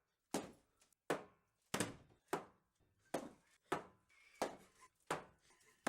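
About nine hard blows at a steady pace, roughly one every 0.7 s, as an old wooden pallet is knocked apart with hand tools.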